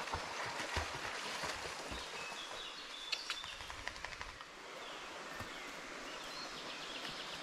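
A dog splashing through a shallow forest stream, with quick irregular splashes over the sound of running water. A bird whistles briefly about three seconds in. From about halfway through, only the steady flow of the stream remains.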